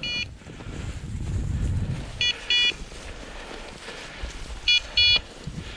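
Dog's beeper collar sounding short, high electronic double beeps about every two and a half seconds, the point-mode signal that the dog is standing on point. Low rustling and crunching underneath.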